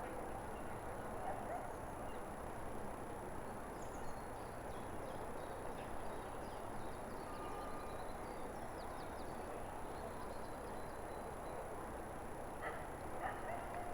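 Outdoor ambience: a steady background hiss with faint, scattered bird chirps.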